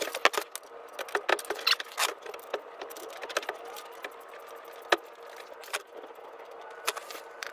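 Irregular clicks, knocks and rattles of gloved hands and a filter wrench working the cartridge oil filter housing under the car, loosening it to get at the paper filter element, over a steady low hum.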